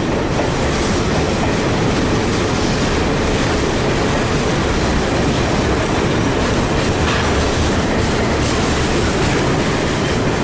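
Broad-gauge container freight wagons rolling past: a steady rumble of steel wheels on rail, with clickety-clack over the rail joints and the wagons banging at their knuckle couplings.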